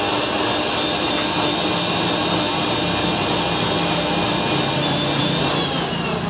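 Electric mixer-grinder motor running steadily at full speed, blending lime juice. Near the end it is switched off, and its whine falls as the motor spins down.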